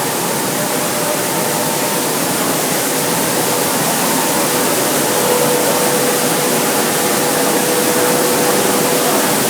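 Rice milling machine running: a loud, steady mechanical noise with a constant hum through it.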